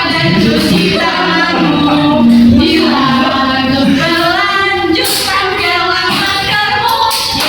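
A woman's voice leading a group sing-along of a children's song on cough and sneeze etiquette, with children's voices joining in.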